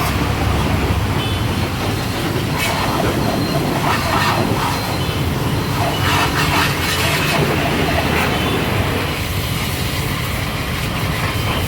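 IDEAL IDSR 210 electric high-pressure washer running: a steady motor hum under the hiss of the water jet.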